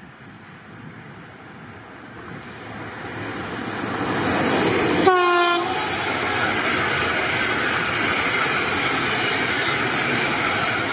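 Locomotive-hauled passenger train approaching and passing close by, its rushing rumble growing over several seconds and then holding steady. About five seconds in, the train sounds one short horn blast.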